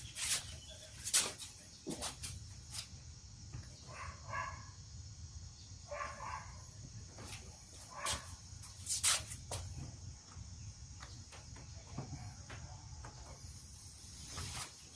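Scattered clicks, taps and rustles of a new rubber weatherstrip being shifted and pressed into place around a car's rear hatch opening, over a steady high chirring of insects.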